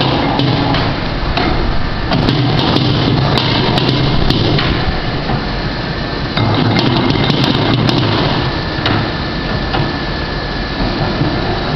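Hobart 140-quart floor mixer running: a loud, steady mechanical whir of motor and gear drive, with scattered clicks and knocks.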